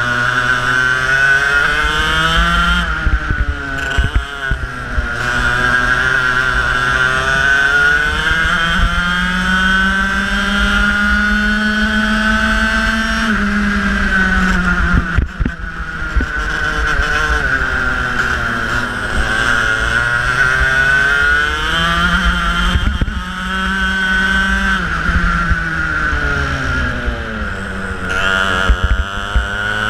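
Racing kart engine heard from on board under racing load. Its pitch climbs through the straights, peaks around halfway, then drops sharply for the braking zones and climbs again several times as the kart brakes and accelerates through corners.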